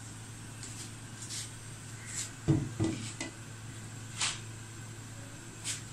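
Cookware being handled on a gas stove: light clinks and knocks around an empty non-stick kadhai, with two louder thuds about two and a half seconds in, over a steady low hum.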